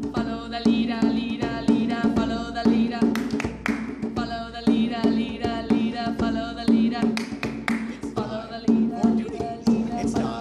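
Djembe-style hand drum beaten in a steady rhythm, with voices singing a melody over it.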